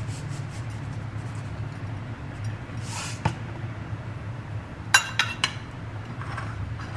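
A metal spoon clinks sharply against a ceramic plate three times in quick succession about five seconds in. Earlier come a few light ticks and a short rustling shake as sesame seeds are sprinkled over the food. A steady low hum runs underneath.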